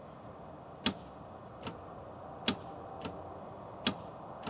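Telescoping bi-xenon HID headlight bulbs clicking as the beams are switched between high and low: the solenoid pulls the bulb in or pushes it out with each change. Three sharp clicks about a second and a half apart, each followed by a fainter click.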